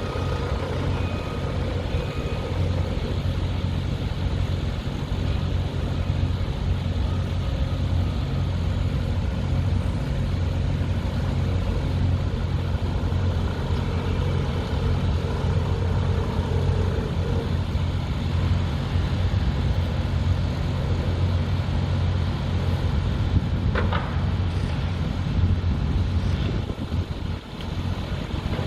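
Steady low rumble of heavy engines running, like trucks or construction machinery idling, with a single short knock about 24 seconds in.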